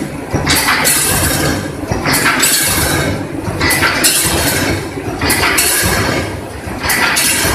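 Wire mesh welding machine running through its work cycle, with metallic clinking and a hissing clatter about every second and a half.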